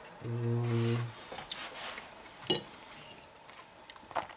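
A man's steady closed-mouth "mmm" hum while eating, lasting about a second. Then two sharp clicks, about a second and a half apart, of a spoon knocking against a black plastic microwave-meal tray as rice is scooped from it.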